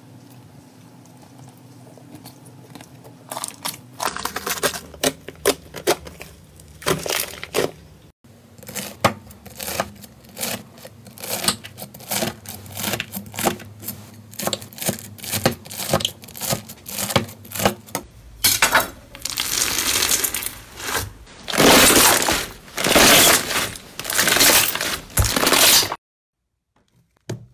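Slime being pressed and squished by hand, including a textured bead-filled crunchy slime: a run of crisp crackling snaps and pops, sparse at first and then rapid, growing into denser, louder crackling before cutting off suddenly about a second before the end.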